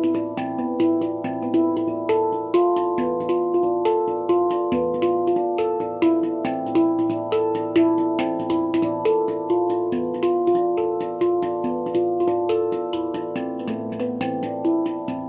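Baopan handpan tuned to a low A2, played with the fingers in a steady stream of quick strokes, several a second, its notes ringing and overlapping.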